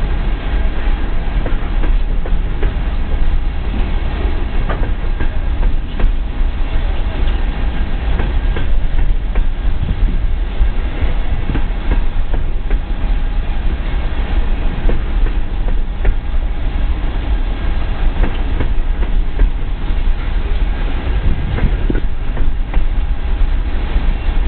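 Coal train hopper cars rolling past at close range: a steady, heavy rumble with the clickety-clack of wheels over the rail joints.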